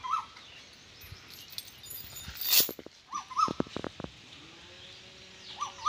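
Short, high two-note animal calls, three of them a few seconds apart, with clusters of sharp sounds in between, the loudest about two and a half seconds in.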